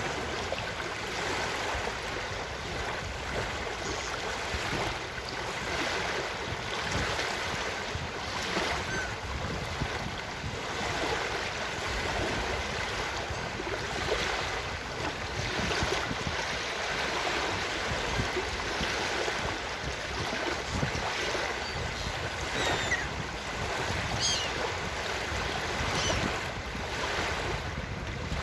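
Ocean surf washing steadily on a beach, with a few short, faint gull calls in the second half.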